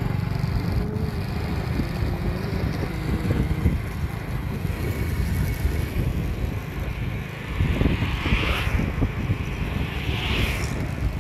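Road traffic with a steady wind rumble on the microphone. Two vehicles pass close, one about eight seconds in and one about ten seconds in.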